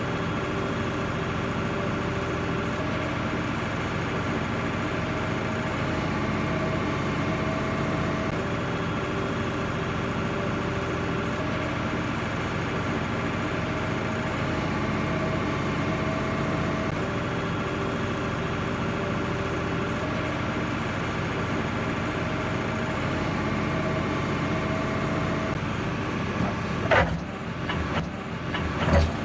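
Heavy machine's engine running steadily, with a higher tone that rises in and drops out every few seconds. About two seconds before the end the sound changes abruptly, with a few sharp knocks and clatter.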